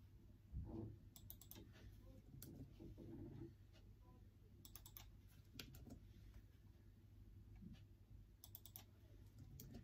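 Faint typing on a MacBook laptop keyboard: key clicks in short bursts of a few strokes, with pauses between them. A soft low thump comes about half a second in.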